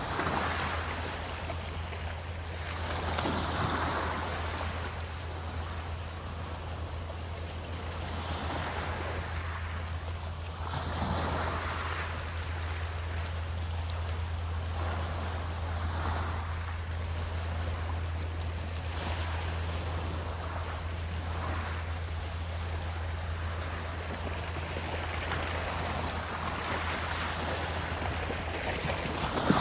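Sea waves breaking and washing ashore, swelling and fading irregularly every few seconds, over a steady low hum.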